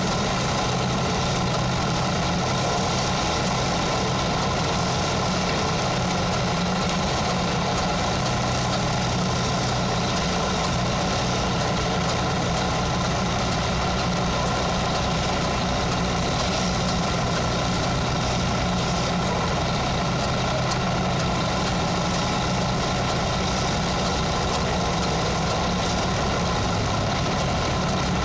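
An engine idling steadily, with an even hiss laid over it and no change in level throughout.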